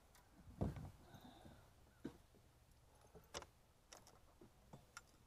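Near silence broken by a few faint clicks and knocks as a just-caught largemouth bass is unhooked and handled with the rod and gear. One louder low thump comes about half a second in, then sharp ticks about every second.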